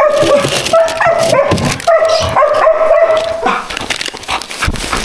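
A dog whining in three long, high whines of about a second each, each sliding slightly down in pitch, over the crinkle of plastic ice-pop wrappers being pulled from a freezer drawer.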